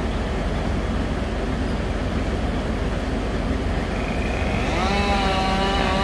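Truck-mounted crane's diesel engine running steadily with a low rumble. Near the end a pitched whine rises and then holds for over a second.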